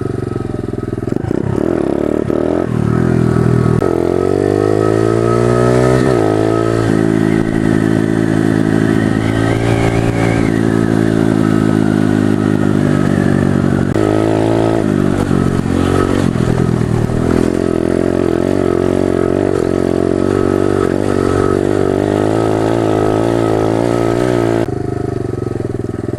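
Pit bike's small single-cylinder engine under throttle while riding, revving up in repeated rising sweeps with a drop at each gear change and a steadier cruising stretch in the middle. Near the end the throttle is let off and the engine note falls away.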